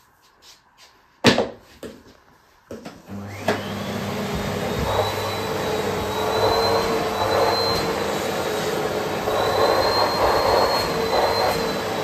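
A sharp knock and a few light clicks, then a Bosch canister vacuum cleaner switched on about three seconds in, its motor whining up to speed and settling into a steady run with a high whine. The suction noise wavers as the nozzle is worked over a fluffy house slipper.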